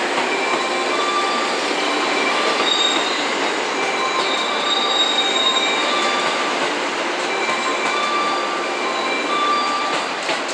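285 series sleeper electric train rolling slowly along the platform as it pulls in to stop, a steady rumble broken by repeated short high-pitched squeals.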